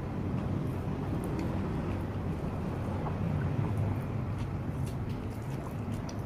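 A steady low hum fills the background, with faint scattered clicks from eating by hand: fingers picking through vegetable salad in a plastic bowl and chewing.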